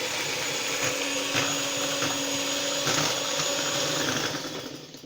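Electric mixer running steadily, beating flour into madeleine batter as it is added little by little; it winds down near the end.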